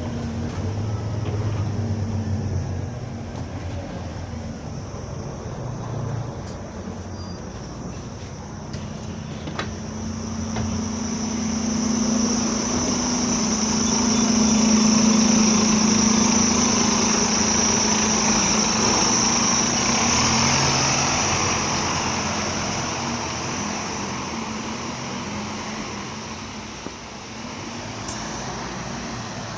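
Bus engine running with a steady hum and a loud, odd high-pitched whistle that swells in the middle and then fades. The noise is heard only while the engine is on.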